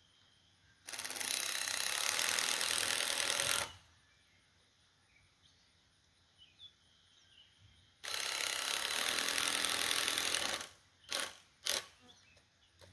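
A power driver running two long pulls of about three seconds each, driving fasteners into the coop frame to lock it into place, followed near the end by a few short bursts as the fastener is seated.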